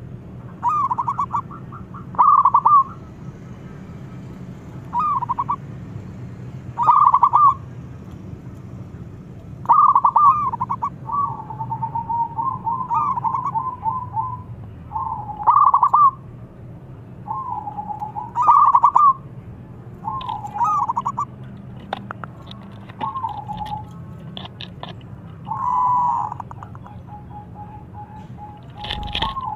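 Zebra dove (perkutut) cooing: short bursts of rapid staccato notes repeated every couple of seconds, some phrases drawn out into longer trills. A steady low hum runs underneath.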